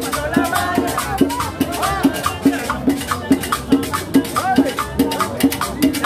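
Cumbia played by a live street combo: a steady drum beat of about two and a half strokes a second, with crisp high percussion and a wavering melody over it.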